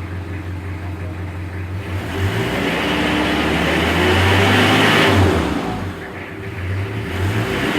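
Mitsubishi L300's 4D56 diesel engine idling, then revved up and held for about three seconds, dropping back near the middle and revving up again near the end. This is a free-rev check of an engine that belches black smoke.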